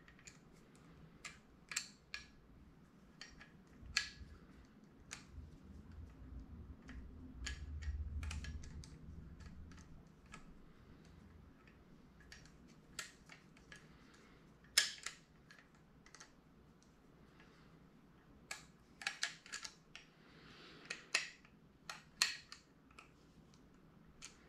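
Irregular sharp metal clicks and taps of a screwdriver working inside a Ford flathead V8 carburetor body as the parts are handled, with a soft low rumble around the middle.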